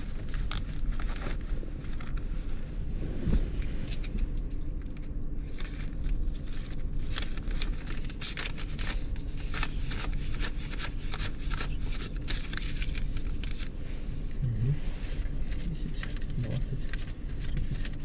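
A 2000 Ford Explorer's 4-litre engine idling steadily, one the buyer says is misfiring. Scratchy rustling and clicks sound close by throughout.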